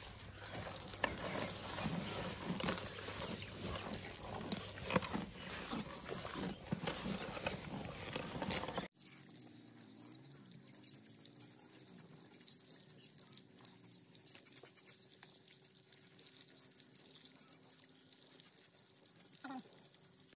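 Calves munching radish leaves from a bowl, a dense run of crisp crunches and snaps of leaves being bitten and torn. About nine seconds in it cuts to something much quieter: faint trickling water from a tap as radishes are rinsed.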